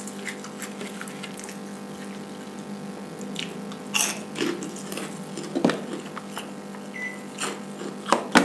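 A man chewing and eating nasi uduk with his fingers, with close mouth sounds and small clicks over a steady low hum. A few sharper clicks stand out, the loudest about four seconds in and just before the end.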